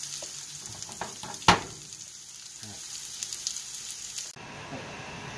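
Steady frying sizzle from a hot pan as pancake batter is poured in, with one sharp knock about a second and a half in. The sizzle cuts off suddenly near the end, leaving quieter room sound.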